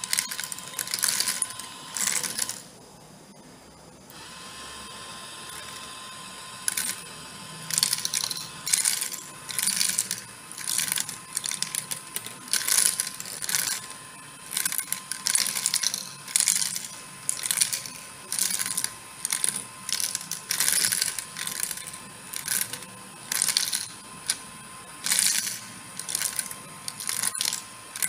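Plastic beads clattering as they tumble through the compartments of a clear acrylic wheel turned by a small DC motor, in rattling bursts about a second apart. There is a brief lull about three seconds in, and a faint steady whine from the motor runs underneath.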